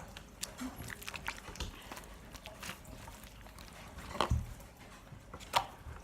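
Slime being handled and squished by hand: scattered faint wet clicks and squelches, with louder ones about four seconds in and again a second or so later.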